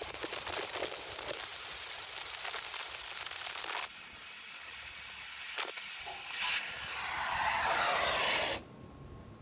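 Oxy-fuel cutting torch hissing steadily with a faint high whistle as it cuts through a steel beam; about four seconds in the hiss drops away. A sharp click follows, then a swelling rush of noise that cuts off abruptly near the end.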